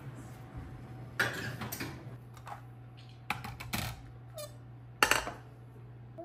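Kitchen handling clatter: a metal muffin tin put into the oven, then a milk-glass mixing bowl set down on a kitchen scale, making several sharp knocks and clinks over a steady low hum. The loudest knock comes about five seconds in.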